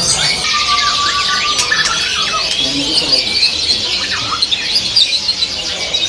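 Many caged songbirds singing and chattering at once, a dense mix of high trills and chirps. A clearer held whistle sounds from about half a second to a second and a half in, and a few other whistled glides follow.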